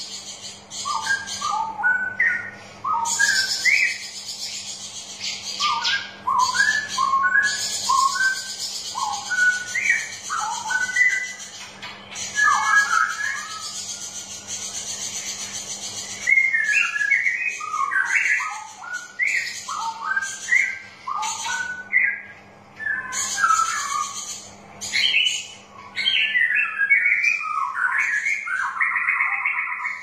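Straw-headed bulbul (cucak rowo) singing its rich bubbling, warbling song in runs of quick gliding phrases. Behind it are long stretches of high hissing chatter and a faint steady low hum.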